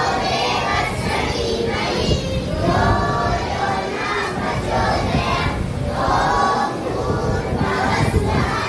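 A group of children singing a prayer together in unison, in phrases of a second or two with short breaks between them.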